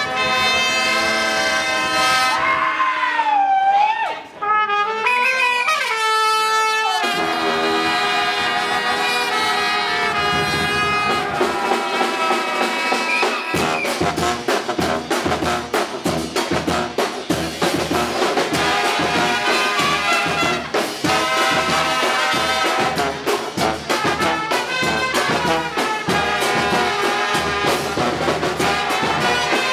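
Brass band of trumpets, trombones, sousaphone and drums playing live. About 3 seconds in it thins to a few horns sliding between notes, then the full horns return, and about 13 seconds in the drums come in with a steady beat.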